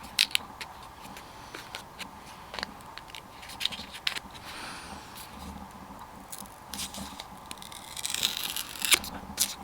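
Packaging being handled and pulled open to free a GoPro camera: scattered clicks, crinkles and tearing scrapes that grow busier near the end.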